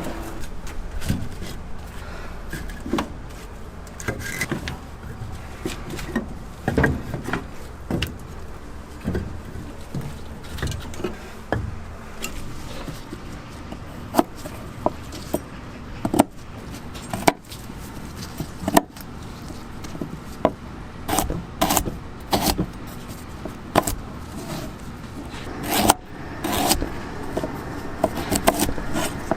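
Irregular sharp clicks and clinking knocks, some loud, over a steady low hum.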